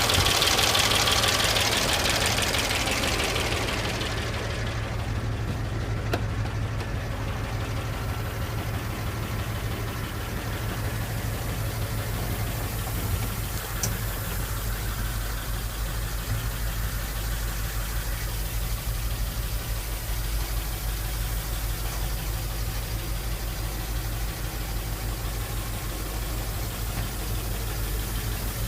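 IHC six-cylinder engine of a 1970 International 2010A grain truck running, louder for the first few seconds and then settling to a steady idle.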